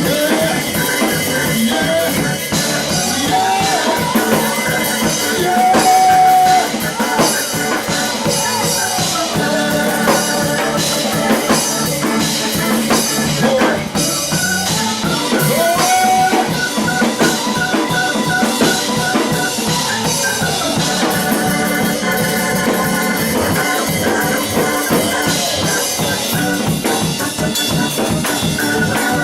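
Live church worship band playing with a steady drum-kit beat, with a voice holding long notes a few times.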